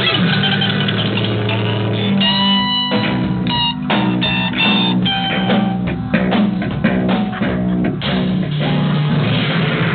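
Rock music: electric guitar, bass guitar and drum kit playing.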